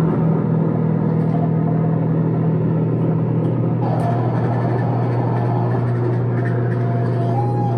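Loud experimental electronic noise music from effects pedals: a steady low drone under a dense, rumbling texture, with a brighter hiss joining about four seconds in.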